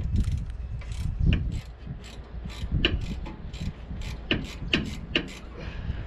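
Irregular metallic clicks and taps as a thread-locked brake caliper guide pin bolt is worked and started into its thread, over a low steady rumble.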